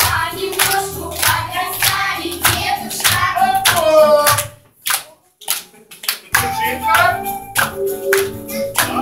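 A festive song with singing over a steady beat. The music breaks off to near silence about halfway through and starts again almost two seconds later.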